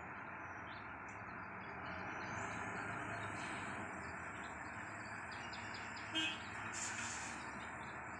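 Steady rumble of a reach stacker working a shipping container, with birds chirping over it. A short clunk comes about six seconds in, followed by a brief hiss of air.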